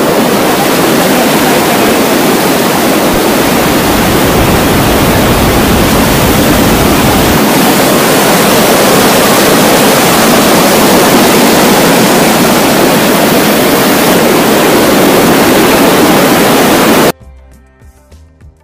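Fast-flowing mountain stream rushing close by: a very loud, steady roar of water. It cuts off suddenly near the end, leaving quiet background music.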